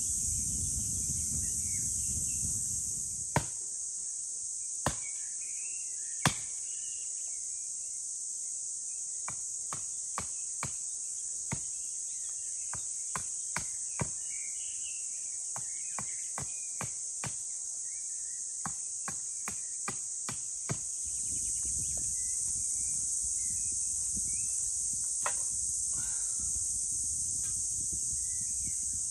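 Wood being chopped: sharp, irregular knocks of a blade on wood, three loud strikes a few seconds in, then a string of lighter, quicker taps. A steady high chorus of insects runs underneath.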